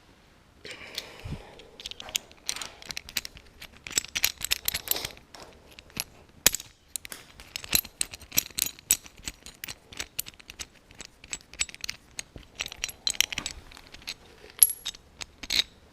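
Loose metal hardware pieces clinking and rattling as they are handled, a quick irregular run of sharp clicks.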